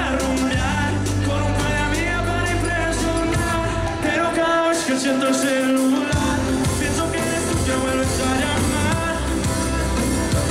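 Live Latin pop music played loud through a concert sound system: a male singer sings into a microphone over a band with a heavy beat. The bass drops out for about two seconds near the middle, then comes back.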